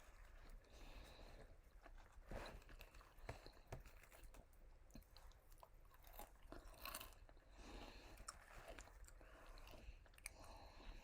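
A person chewing and crunching on KFC fried food, faint, with irregular crunches and wet mouth clicks.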